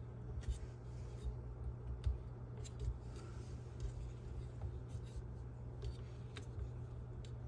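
Faint scattered clicks and light rubbing as a KitchenAid Spiralizer Plus attachment is handled to take its blade off, over a steady low hum.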